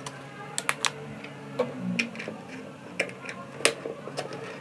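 Irregular sharp clicks and knocks of hard plastic, about eight of them, the loudest about three and a half seconds in, as the clear water tank of a bladeless fan-humidifier and its lid are handled and fitted into place.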